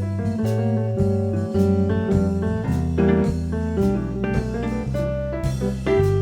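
Live jazz combo playing an instrumental solo break with no vocals: sustained chords and melody over a walking bass, with the drum kit keeping steady time.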